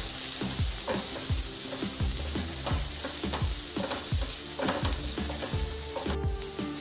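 Chopped onions, green chilli and cumin seeds sizzling in hot oil in a kadhai, with a spatula scraping across the pan as it stirs them, about two strokes a second. The sizzle cuts off suddenly near the end.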